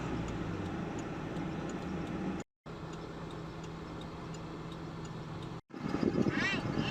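Car engine and road hum heard inside the cabin while driving, with a steady low tone. The sound cuts out abruptly twice.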